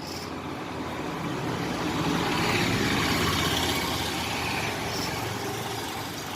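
A motor vehicle's engine passing by, growing louder to a peak near the middle and then fading away.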